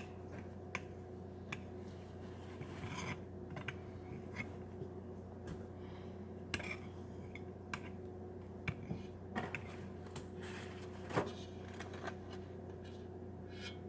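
Scattered light clicks, taps and scrapes of kitchen things being handled while pizza is made, over a steady low hum.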